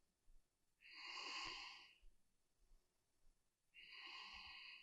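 A woman breathing slowly and faintly: two audible breaths of about a second each, about three seconds apart.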